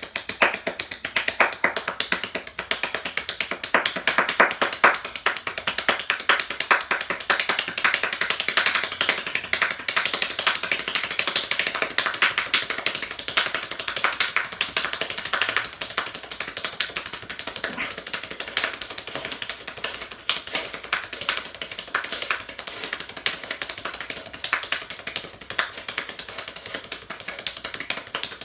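One person clapping hands very fast and without a break, many sharp claps a second, a little quieter in the second half.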